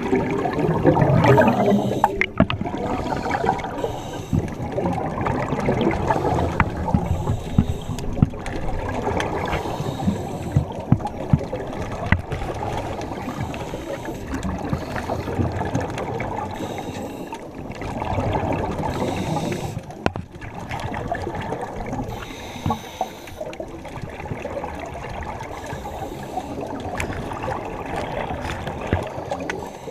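Scuba exhaust bubbles gurgling past an underwater camera housing, surging in swells every few seconds with each exhalation, among scattered small clicks and knocks.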